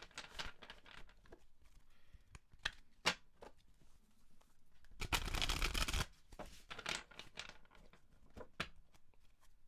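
A deck of tarot cards being shuffled by hand: a run of light card flicks and snaps, with a denser burst of shuffling about five seconds in that lasts about a second.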